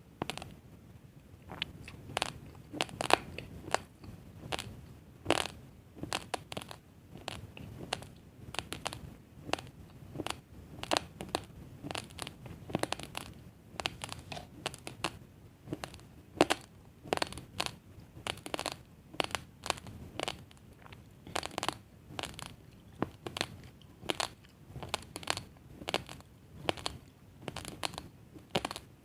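Raw, uncooked basmati rice grains being chewed close to the microphone, crunching with sharp cracks a few times a second.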